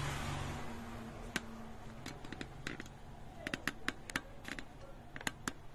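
About fifteen small, sharp clicks and taps at uneven intervals, starting about a second in, with several bunched closely together in the middle.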